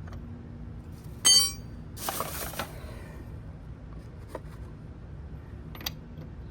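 Metal tools clinking: a sharp ringing clink about a second in, then a short rattle of metal pieces being sorted, and a few small clicks after. These are sockets being rummaged through in search of the right size.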